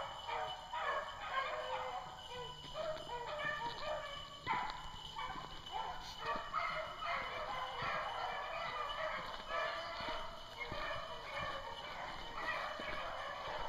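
A pack of beagles baying, many overlapping cries in a continuous chorus: the hounds are in full cry on a rabbit's track.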